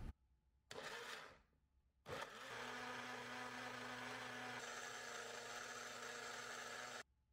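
Countertop blender blending a green smoothie: a brief burst about a second in, then a steady run of about five seconds whose tone shifts partway through, stopping suddenly.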